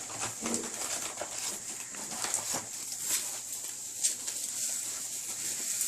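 Packaging being handled: irregular rustles and light knocks over a steady hiss.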